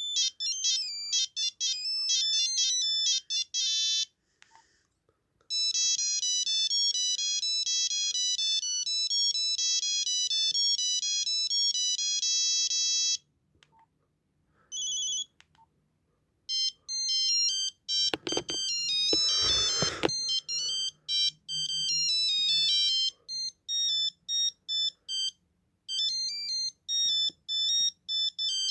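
Nokia 8265i mobile phone playing its built-in monophonic ringtones one after another: melodies of single high beeping notes, with short pauses between tunes. About eighteen seconds in, a burst of noise lasting about two seconds runs under one of the tunes.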